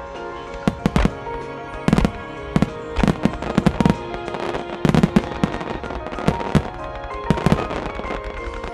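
Starmine fireworks display: aerial shells bursting in quick, irregular clusters of sharp bangs, the densest cluster about five seconds in. Music with steady held tones plays underneath.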